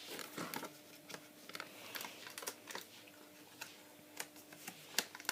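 Fingers fumbling with a small cardboard box that won't open: irregular light clicks, taps and scrapes of card.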